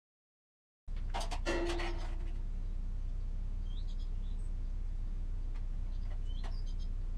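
A steady low hum, with a few knocks about a second in, and faint bird chirps a few times.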